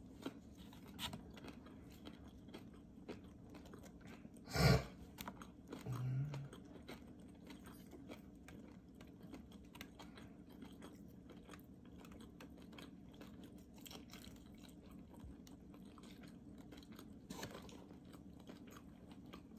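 A person chewing fried food close to the microphone, with faint, soft crunching and mouth clicks throughout. A single louder crunch or knock comes about four and a half seconds in, followed shortly by a brief low hum.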